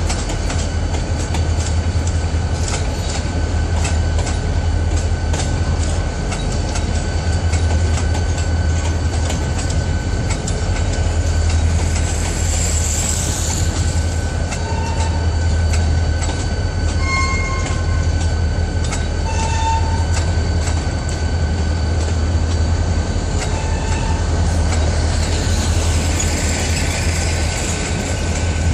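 Loaded freight train's hopper cars and boxcars rolling past at steady speed: a continuous low rumble with wheels clicking over the rail joints. Short wheel squeals come through now and then, with a higher squeal about twelve seconds in and again near the end.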